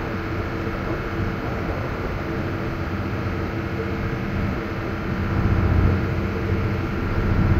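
Steady low drone of a boat's diesel engine running under way, swelling briefly about six seconds in.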